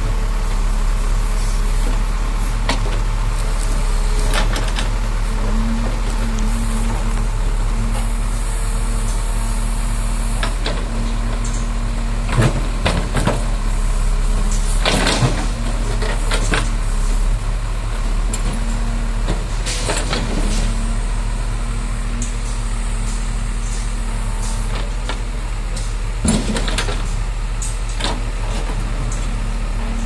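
JCB 3DX backhoe loader's diesel engine running steadily under load as the backhoe arm digs. Several clanks and scrapes of the bucket against rocks and soil come through it, the loudest a little past halfway.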